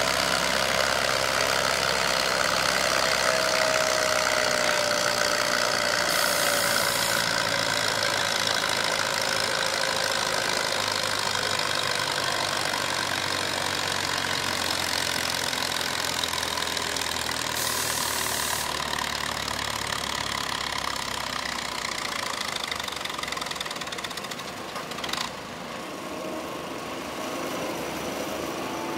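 Antique farm tractor's engine working under load as it drags a weight-transfer sled in a tractor pull, a steady engine drone that grows gradually fainter toward the end.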